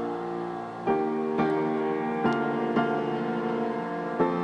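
Background piano music: slow, sustained notes and chords struck one after another.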